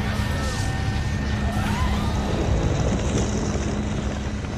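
Steady rushing rumble of a lava fountain erupting, over a sustained low drone of background music.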